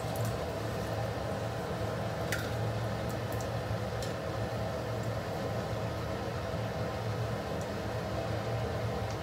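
Steady mechanical hum with a low drone and a faint held tone, with a few light clicks, the sharpest about two seconds in.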